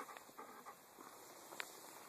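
Golden retriever panting faintly, with a light click about one and a half seconds in.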